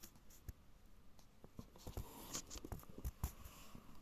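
Faint, irregular clicks and rustling, with a cluster of soft knocks between about two and three and a half seconds in.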